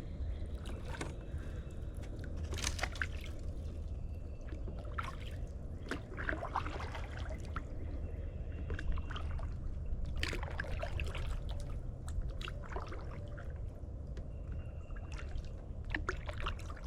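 Kayak paddle strokes: the blades dip into the water with water trickling and dripping off them, a splashy stroke every couple of seconds.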